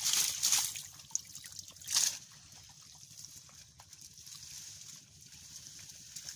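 Hands splashing and scooping mud and water in a shallow muddy ditch. A few loud splashes come in the first two seconds, then the water goes quieter.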